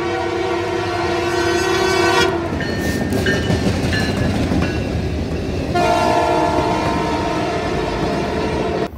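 Canadian Pacific locomotive's air horn sounding a long chord that ends a couple of seconds in, and a second long blast from about six seconds in, over the rumble and wheel clatter of the passing train. The sound cuts off suddenly just before the end.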